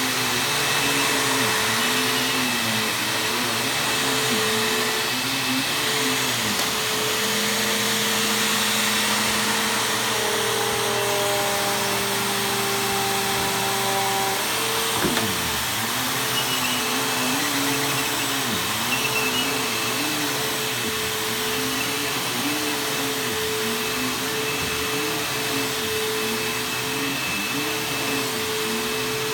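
Bissell bagless upright vacuum cleaner running on carpet, its motor pitch dipping and recovering over and over as it is pushed back and forth, with a steadier stretch in the middle.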